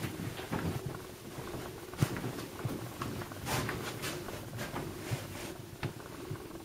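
Footsteps and rustling handling noise from a person walking around a small room with a handheld camera, with a sharp click about two seconds in.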